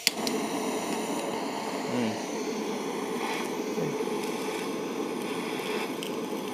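Gas torch lit with a sharp click and burning with a steady hiss. The flame is heating a clogged motorcycle oil filter screen to burn off its carbon crust.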